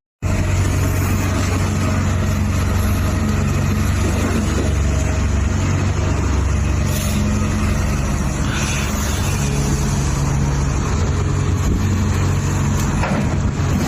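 RC excavator's motor running steadily, a low droning hum with a hiss over it.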